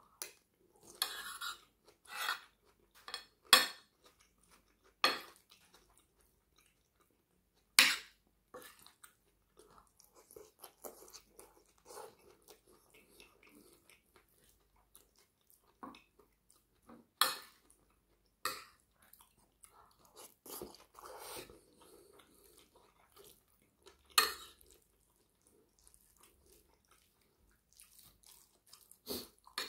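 Metal fork clinking and scraping on a ceramic plate, about a dozen sharp clinks spaced unevenly, with quieter chewing and mouth sounds between them as rice and curry are eaten.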